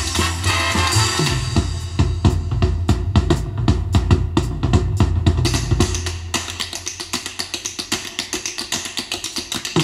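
Swing-era music from a 1970s stereo tap-dance LP played through loudspeakers: a percussion break of rapid, sharp strokes over a bass line, thinning to a quieter, even run of fast clicks for the last few seconds.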